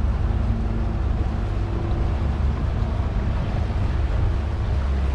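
Boat engine running steadily on a canal, a low rumble with faint hum tones, mixed with wind on the microphone.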